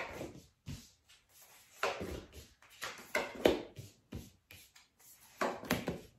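Tarot cards being handled and laid down on a cloth-covered table, a few separate brushing swishes of card against card and cloth.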